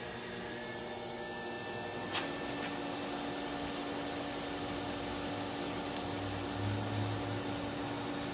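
TIG welding arc on 3/16-inch steel, burning with a steady hiss as the bead is laid. A click comes about two seconds in, and a steady hum tone runs under the hiss from then on. The Coolmate 1.3 torch cooler runs in the background.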